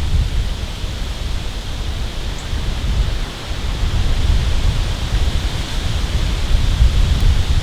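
Wind buffeting the microphone: a steady low rumble under a constant hiss.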